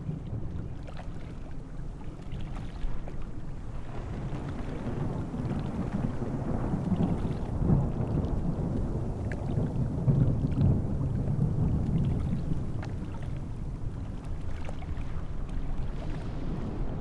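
Airbus helicopter heard at a distance as a low, uneven rumble that swells and fades.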